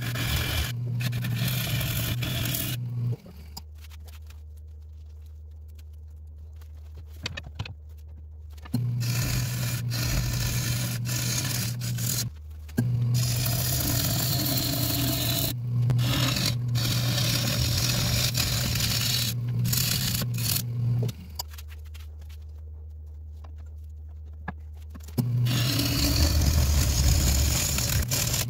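A turning tool cutting into a large acacia bowl blank spinning on a Nova 3000 wood lathe: a steady scraping, shearing noise of shavings peeling off, over the lathe motor's hum. Twice the tool is lifted off the wood for a few seconds, leaving only the quieter, lower hum of the lathe running.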